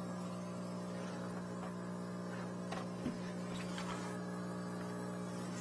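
Steady electric hum from a running machine, with a few faint knocks about three to four seconds in.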